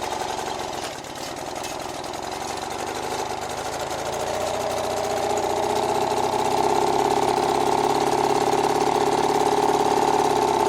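British Seagull two-stroke outboard motor running, getting louder about halfway through and then holding steady.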